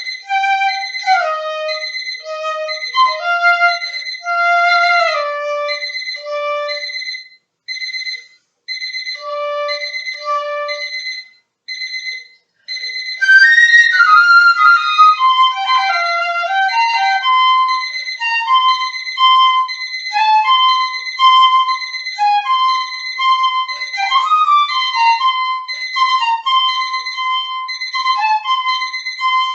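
Piccolo playing a solo melody in short, detached notes, broken by two brief rests. About halfway through it turns louder and busier, with quick runs and sliding notes.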